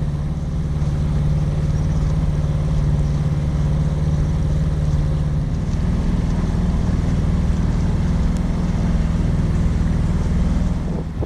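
Sailboat's inboard engine running steadily under way, a continuous low drone. Its note shifts slightly about halfway through.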